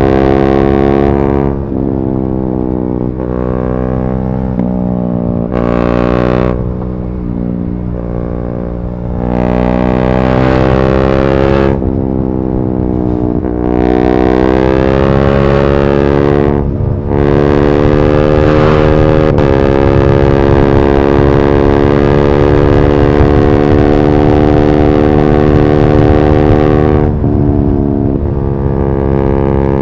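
KTM 390 Duke's single-cylinder engine through an Akrapovic slip-on and decat pipe, running loud. Its pitch climbs and drops sharply several times, then holds steady for several seconds in the second half before dropping again.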